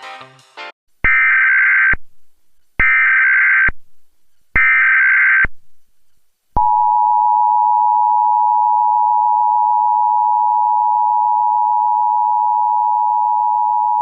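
Intro music ends under a second in, followed by three one-second bursts of EAS SAME header data tones about a second apart. About six and a half seconds in, the steady two-tone EAS attention signal (853 and 960 Hz) starts and holds loud and unbroken.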